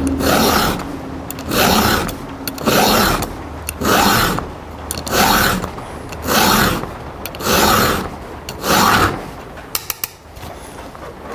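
A chainsaw file rasping across a blunt chain cutter tooth in about eight steady strokes, roughly one a second, which sharpen the tooth. The strokes stop near the end and a few light clicks follow.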